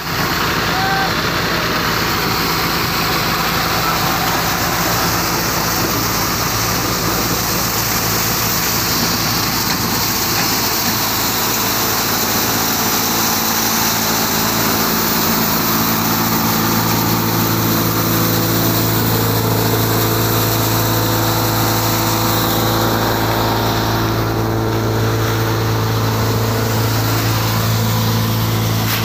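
Tractor-driven multi-crop thresher running steadily: the tractor engine and the thresher's drum and fan make a continuous mechanical hum, its low tone growing stronger about halfway through.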